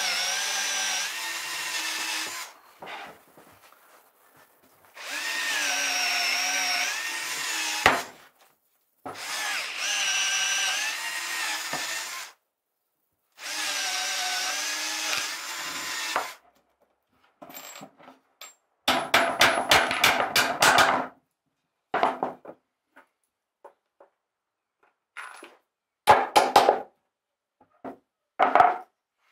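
Cordless drill boring holes through a wooden board, in four runs of a few seconds each, the motor whine wavering in pitch as the bit bites. After that, clusters of quick knocks and taps on wood.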